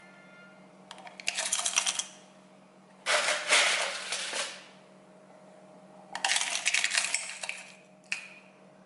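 Crushed ice dropped by hand into a tall glass flute in three handfuls, about one, three and six seconds in, with a short fourth near the end; each time the pieces clink and rattle against the glass.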